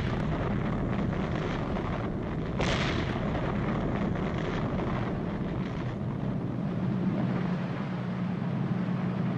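Quarry rock blasting: a continuous heavy rumble of shattered rock and debris, with a second blast surging up about two and a half seconds in.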